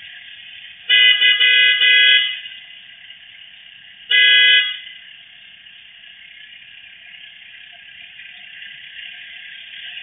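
Car horn honking: a stuttering blast of several quick toots about a second in, then one short toot about three seconds later.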